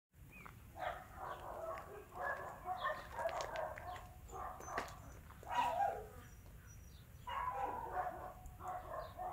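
A dog barking in repeated bouts, with faint bird chirps.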